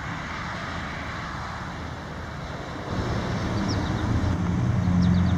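Steady rumbling noise of an approaching train, then from about three seconds in the low, steady drone of CSX GE diesel freight locomotives approaching, growing louder.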